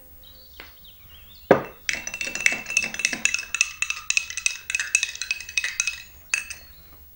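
A metal spoon stirring in a small glass of liquid, clinking rapidly against the glass with a ringing tone. It follows a single louder knock, and a last tap comes near the end.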